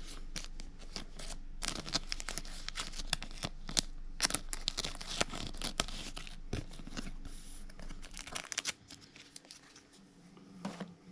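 Trading card pack wrapper being torn open and crinkled: a dense run of crackling and ripping that dies down to quiet handling about eight seconds in.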